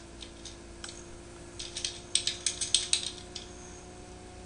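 Computer keyboard typing: a few scattered key clicks, then a quick run of about a dozen keystrokes as a short phrase is typed.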